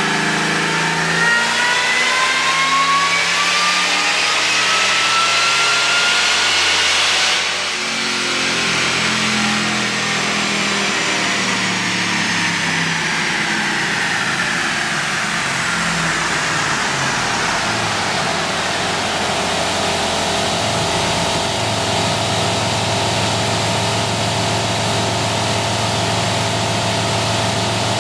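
2006 Ford F-150's 5.4-litre V8 with a Roush (Eaton M112) supercharger at 11 psi, making a full-throttle pull on a chassis dyno: the engine and supercharger whine rise steadily with revs. About seven seconds in the throttle closes and the whine falls slowly over some ten seconds as the dyno rollers coast down. The engine then settles to a steady idle.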